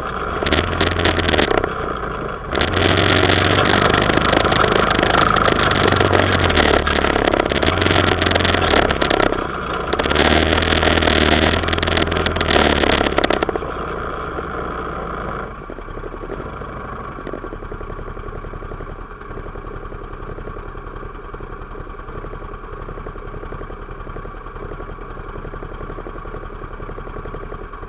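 Off-road vehicle's engine pulling under throttle while riding over sandy gravel, with a loud rushing noise of wind and tyres, easing off briefly about 2 and 9 seconds in. About halfway through it slows to a stop and settles to a steady idle.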